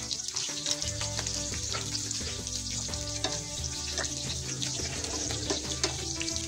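Pieces of pork belly frying in a pan, sizzling with many small crackles. Background music plays underneath.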